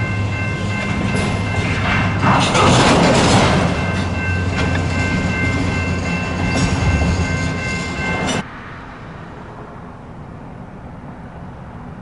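Freight train's autorack cars rolling past close by: a loud steady rumble of steel wheels on rail with clickety-clack, surges of hiss and a high steady whine over it. A little over eight seconds in, the sound drops abruptly to a much quieter, more distant rumble.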